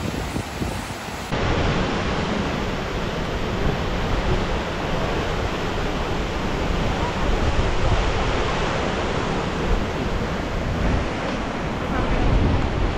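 Whitewater of a glacial river rushing through a narrow lava-rock channel, a steady rush of water noise that steps louder about a second in. Wind buffets the microphone, strongest near the end.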